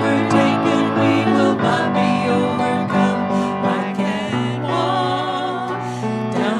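Worship song sung with instrumental accompaniment: voices holding sustained notes over a keyboard backing.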